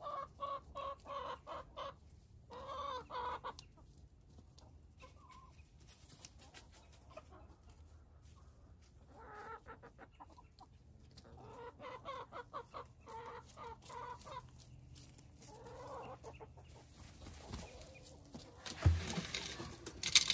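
Chickens clucking and calling in several bursts, with roosters in the flock. Near the end comes a sudden loud bump followed by rustling.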